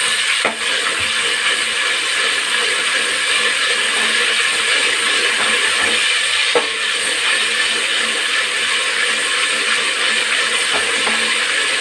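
Ginger-garlic paste sizzling as it fries in hot oil and butter, stirred with a metal ladle scraping around a metal pot, with a few light clicks of the ladle against the pot.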